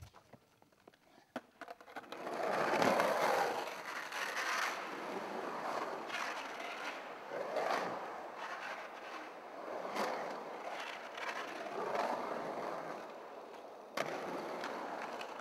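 Skateboard wheels rolling on the concrete of a large full pipe: after a quiet start with a few faint clicks, a continuous rumbling roll sets in about two seconds in and swells and fades every couple of seconds as the rider carves up and down the walls, with a few sharp clicks along the way.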